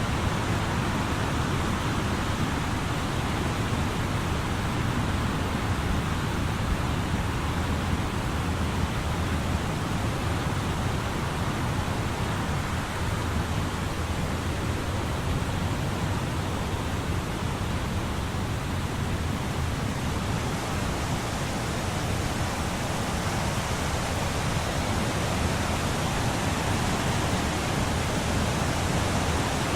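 Wind blowing through a tree, its leaves rustling in a steady wash of noise with a deep rumble of wind underneath.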